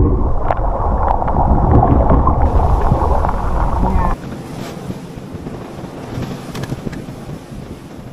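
Wind buffeting the microphone over sea surf on rocks, loud and low. About four seconds in it drops suddenly to a quieter, steady wash of waves breaking against the rocks.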